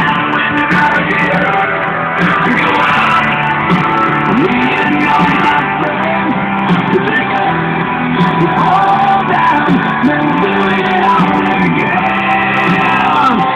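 Rock song with guitar and singing, played loud and steady through a custom ATV speaker box's 6.5-inch Pyramid speakers and Alpine CD player.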